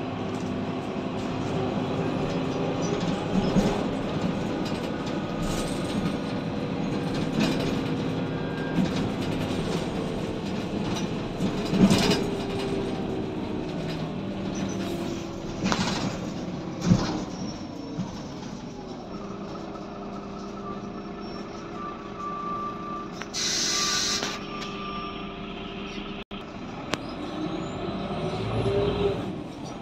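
Heuliez GX 427 articulated diesel bus heard from inside the passenger cabin on the move: steady engine and drivetrain drone with body rattles and a few sharp knocks over bumps. The drone drops lower and quieter a little past halfway, and about three-quarters of the way in a brief hiss of air comes.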